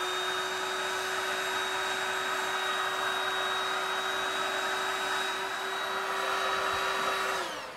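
Looftlighter electric hot-air fire starter blowing steadily, its fan motor giving a constant whine over a rush of air. It is switched off near the end, and the whine falls in pitch as it spins down.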